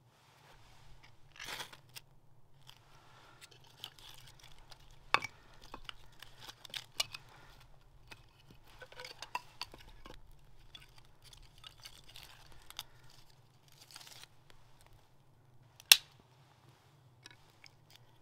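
Dry split kindling sticks being handled, knocked together and laid over a small newly lit fire, with scattered clicks and light crackling. A short rasp comes about a second and a half in, and a sharp wooden crack near the end is the loudest sound.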